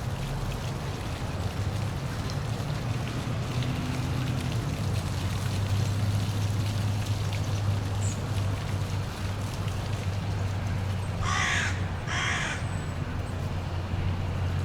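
Steady rush of a park waterfall with a low, even rumble beneath it. Near the end, a crow caws twice, loud and harsh, about half a second apart.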